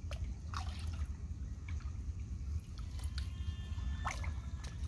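Water dripping and splashing off a wet cast net as it is gathered up out of a pond, in a handful of short splashes, over a steady low rumble.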